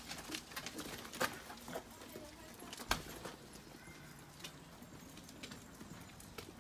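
Footsteps on a brick-paved path: irregular hard clicks and scuffs of several people walking, with two louder steps about a second in and near three seconds in.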